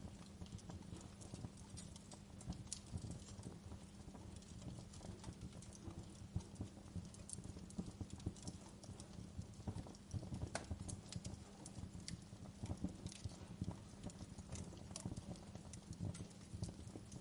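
Wood fire burning in a fireplace, crackling with many irregular sharp snaps and pops over a steady low hum.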